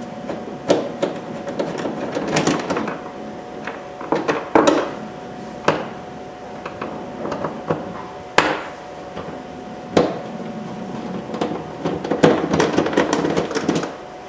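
Scattered plastic clicks and knocks from a screwdriver working at the door-pull trim of a car's plastic door panel while the Phillips screws behind it are taken out. A quick run of rattling clicks comes near the end.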